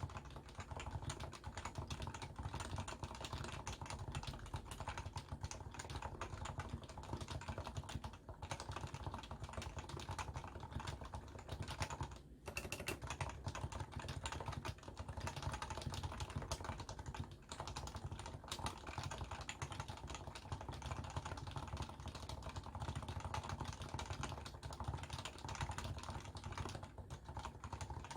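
Fast, continuous typing on a Leopold FC660C keyboard with stock, non-silenced 45 g Topre electrostatic capacitive switches, a dense patter of keystrokes with a few brief pauses, picked up by a phone's microphone.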